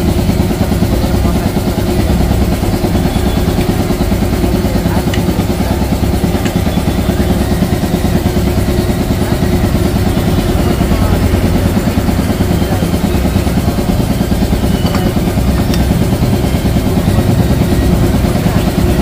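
A motor engine running steadily, a constant low drone, with a few faint clicks.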